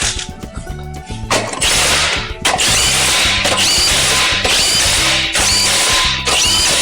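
A power tool running in about five back-to-back bursts of roughly a second each, starting a little over a second in, over background music with a repeating bass line.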